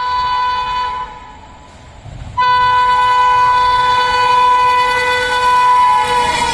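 WAP7 electric locomotive's air horn sounding as a high-speed express approaches: a short blast, a gap of about a second and a half, then one long blast. Near the end its pitch drops as the locomotive passes, with the rush of the train arriving.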